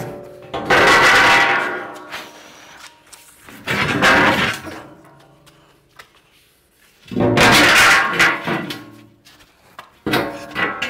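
Thick metal plates scraping and ringing as they are shoved and tipped against a wall, in about four loud bursts. Each burst rings on and dies away, and there are short quiet pauses between them.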